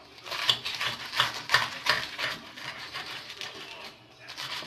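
A knife sawing through a toasted sandwich, the crisp toast crunching and rasping in quick repeated strokes. The strokes ease off about three quarters of the way through and pick up again near the end.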